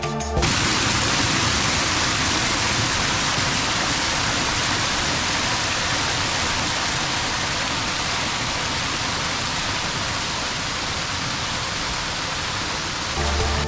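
Water rushing steadily over a small stepped stone weir in an artificial stream, an even dense rush that cuts in suddenly just after the start and cuts off just before the end.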